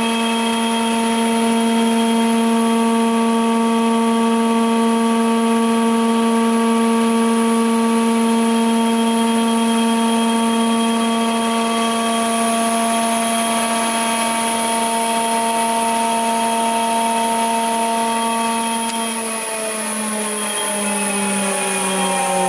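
Jointer cutterhead of a GIBEN combination woodworking machine running empty with a steady whine. About 19 seconds in it starts to wind down, its pitch falling steadily as it slows.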